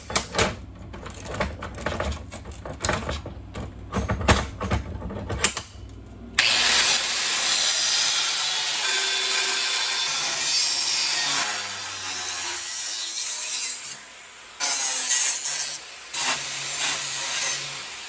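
Knocks and clatter of material being handled, then a power tool cutting out a 1/8 inch template piece. It cuts for about eight seconds, stops briefly, then cuts again.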